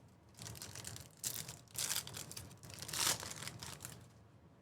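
Crinkling and tearing of a baseball card pack's wrapper being ripped open and handled, in several rustling bursts that die away near the end.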